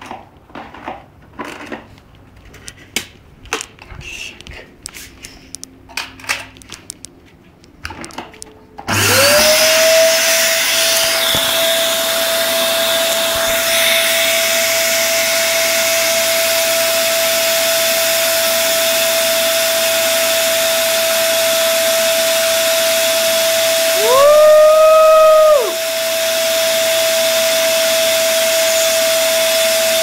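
Scattered small clicks and taps of handling, then about nine seconds in a Sharp 1200-watt vacuum cleaner switches on and runs steadily with a high whine and hiss while drawing air through a lit cigarette held in its hose. About two-thirds of the way through, a second, higher tone joins and the sound grows louder for about a second and a half, then settles back.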